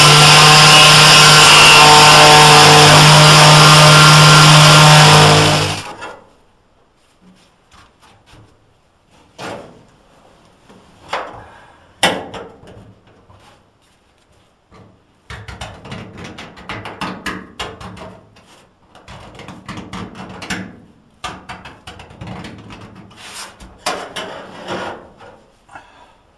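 Power grinder running at full speed with a steady high whine, cut off suddenly about six seconds in. Then come scattered metallic knocks and clicks and stretches of irregular rattling and scraping as metal parts are handled.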